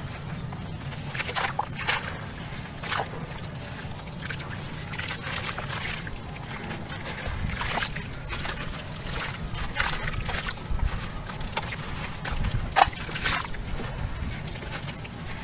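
Hands crumbling a dried sand-cement chunk: irregular gritty crunches and crackles as it breaks apart, with crumbs dropping and sloshing into a wet puddle of grey slurry in a plastic tub.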